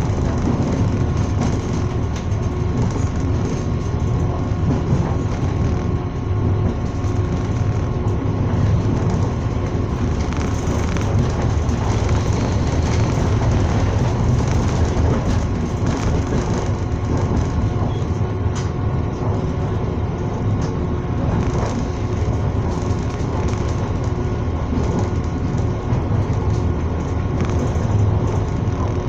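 Passenger train running at speed, heard from inside the carriage: a steady low rumble of wheels on rails, with a faint steady hum and a few light clicks.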